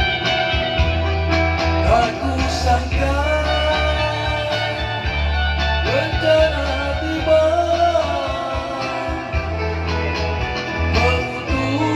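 A man singing a song over backing music.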